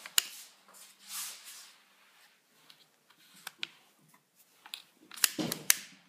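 A hand handling the plastic housing of a Bosch GBH 2-24 rotary hammer drill that is not running: brief rubbing and scattered sharp clicks, the loudest two near the end.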